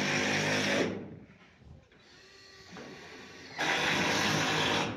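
Power drill driving screws through corrugated metal roof panels: two runs of steady motor whine, one lasting about a second at the start and another of a little over a second near the end.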